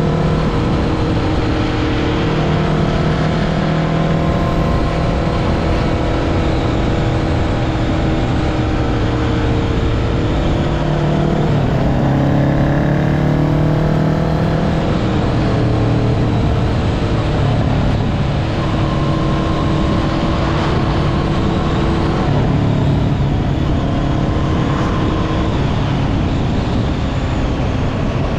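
Kawasaki Ninja 650's parallel-twin engine running through an aftermarket link pipe and slip-on muffler, holding a steady engine speed, its pitch dipping and rising again about halfway through.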